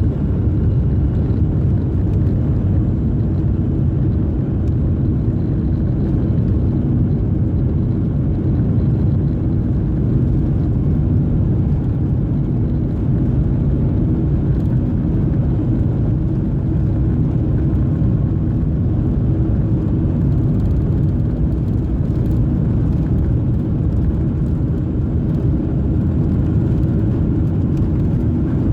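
Boeing 737-400 cabin noise: the steady low rumble of the engines and airflow heard from inside the passenger cabin, with a faint steady hum over it.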